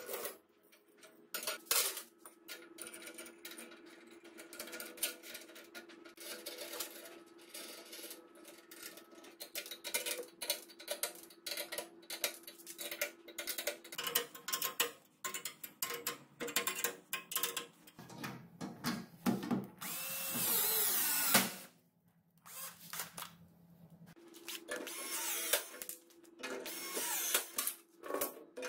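Steel U-bolts, plates and nuts clinking and knocking as they are handled out of a plastic basket and fitted to a leaf-spring axle. A loud whir lasting about a second and a half comes about twenty seconds in.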